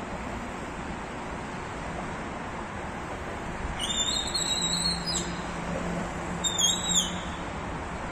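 Steady outdoor road traffic and wind noise, with two high whistles, a longer one about four seconds in and a short one about six and a half seconds in, under a faint low hum.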